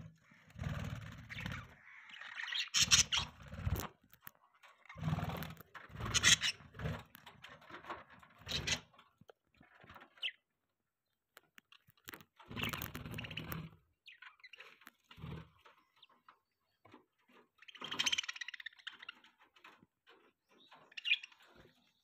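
A flock of budgerigars chattering and chirping in bursts a second or two long, with short pauses between them and a low rumble under several of the bursts.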